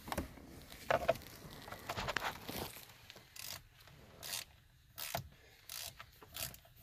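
Hand ratchet with a 7/32 socket rasping in repeated short strokes, backing out a steering-column cover screw.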